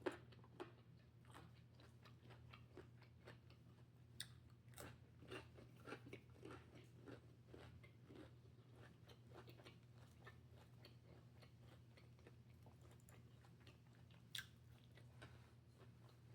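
Quiet chewing and biting of food close to the microphone: soft crunches and small mouth clicks, most frequent in the first half, with one sharper click near the end, over a faint steady low hum.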